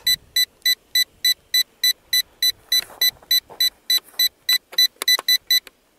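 Rapid electronic beeping from the JXD 509G quadcopter's radio transmitter, signalling that headless mode is on: short, high, identical beeps about three times a second that stop suddenly near the end.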